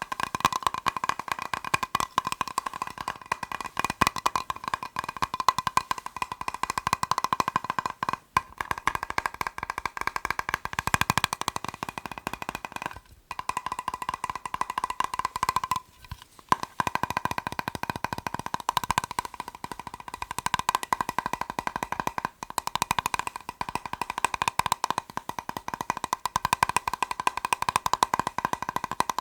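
Fast fingertip tapping on a plastic box: a dense, rapid patter of taps with a steady ringing tone from the box, breaking off briefly a few times.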